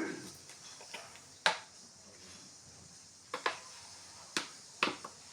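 About half a dozen sharp clacks at irregular intervals, a cooking utensil knocking against the metal pot while the beef is stirred.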